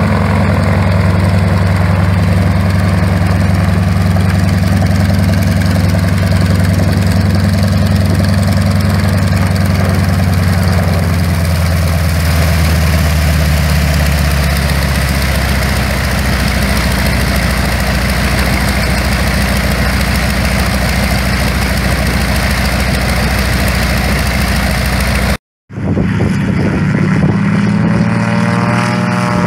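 North American T-6 Texan's nine-cylinder radial engine idling with the propeller turning as the plane taxis in and parks, its note dropping a little under halfway through. Near the end the sound cuts off abruptly and another vintage single-engine propeller plane's engine is heard powering up for a short-field takeoff.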